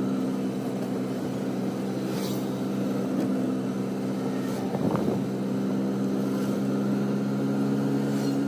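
Auto-rickshaw riding along a road, its motor giving a steady, even hum, with a brief knock about five seconds in.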